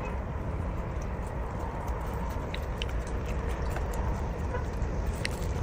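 A dog eating ice cream, licking and chewing, with a few small sharp clicks over a steady background hiss.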